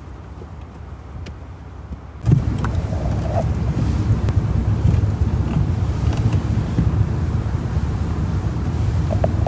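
Low, steady rumble of wind buffeting the microphone outdoors, suddenly much louder about two seconds in.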